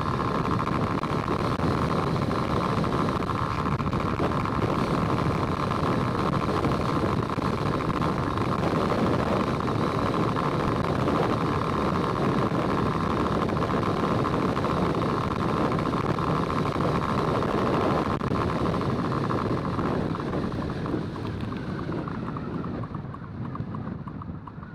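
Steady road and wind noise of a moving vehicle, with a constant mid-pitched hum, growing quieter over the last few seconds as it slows for an intersection.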